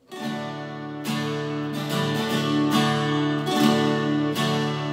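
Twelve-string acoustic guitar strummed, playing the opening chords of a song's instrumental intro with a slow, steady strum.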